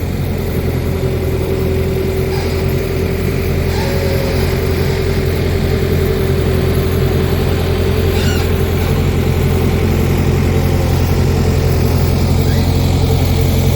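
Heavy construction-machine engine running steadily at a constant speed, a low, even hum with a steady mid-pitched tone above it.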